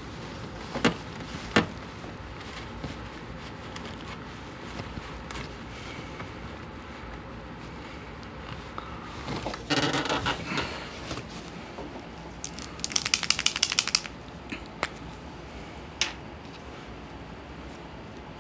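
Hand-work noises in an engine bay: a few sharp clicks, a burst of rubbing and handling about ten seconds in, then a fast, even run of clicks lasting about a second.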